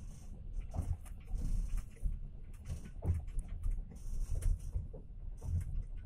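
Passenger train running along the rails, heard from inside the carriage: a steady low rumble with irregular knocks and rattles.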